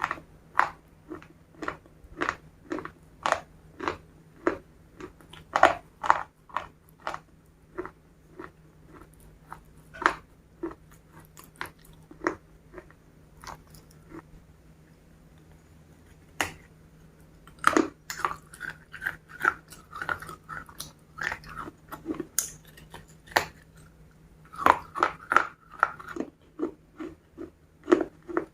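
Close-miked chewing of crispy KFC fried chicken: a run of loud crunches, roughly two a second, easing off to quieter chewing in the middle before the crunching picks up again.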